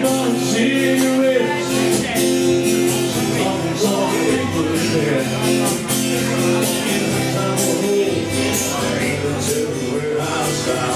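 Loud band music with singing over guitar and a steady beat.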